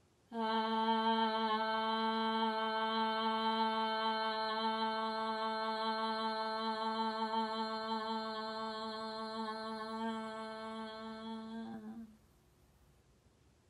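A woman's voice singing one long sustained 'ah' vowel on a single steady note, a voice-yoga toning exercise. It starts about half a second in, holds for about eleven seconds while slowly growing softer, and stops sharply near the end.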